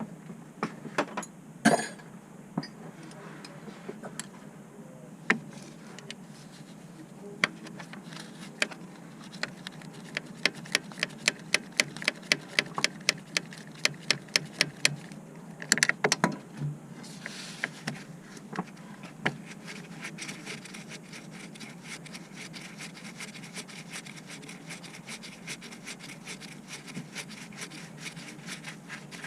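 Metallic clicks and knocks of hand tools at work, including a run of evenly spaced clicks, about three or four a second, midway through. A steady hiss sets in a little past halfway and carries on.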